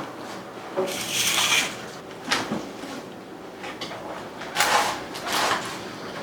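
A series of short scraping, rustling and knocking handling noises, several separate sounds a second or two apart.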